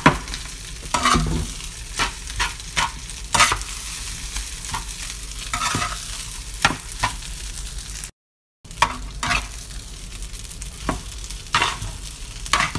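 Metal spatula scraping and tapping against a frying pan while stirring fried rice, over a steady sizzle of frying. The strokes come irregularly, about one to two a second, with a brief break about two-thirds through.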